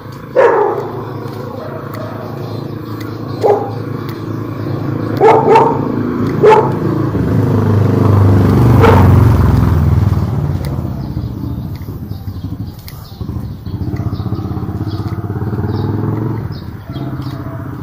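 A dog barking about six times while a motor vehicle, likely a motorcycle, passes. The engine grows louder towards the middle and then fades away.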